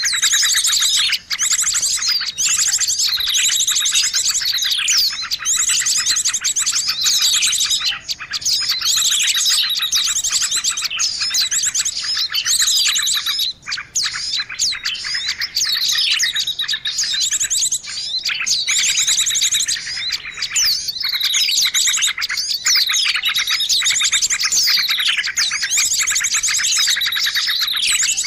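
Small-bird lure recording: a dense, continuous mix of high chirps, twitters and quick falling trills from several small birds calling over one another.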